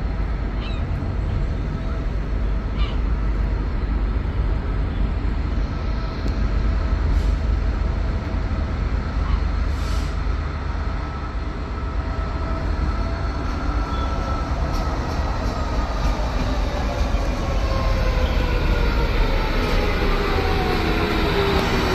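A train at a station, with a steady low rumble and a whine whose tones fall in pitch over the last several seconds, as of a train slowing.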